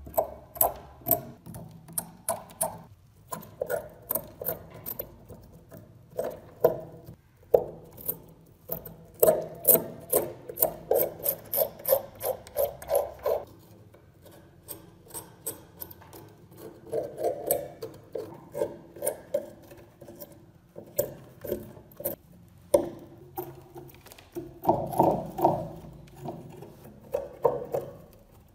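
Metal pick scraping and chipping at a hard crust of dirt and rust caked on a knife blade, in quick runs of short strokes with brief pauses between them.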